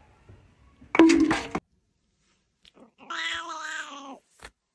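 A loud, harsh, short sound about a second in, then a domestic cat's drawn-out meow that slowly falls in pitch, lasting just over a second.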